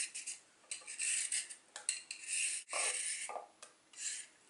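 A handheld vegetable peeler scraping long strips off a raw carrot, in a series of quick strokes of about two a second.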